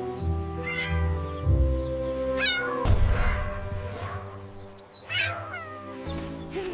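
A cat meowing three times in high, wavering calls over background music.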